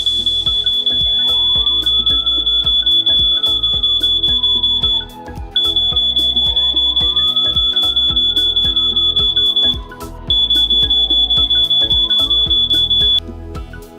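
Burglar-alarm siren sounding a piercing high-pitched tone in three long stretches, with short breaks about five and ten seconds in, stopping shortly before the end. Background music plays underneath.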